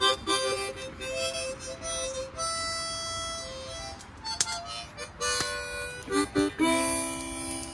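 Small harmonica played haltingly: short notes and chords broken by brief pauses, ending on a longer held chord.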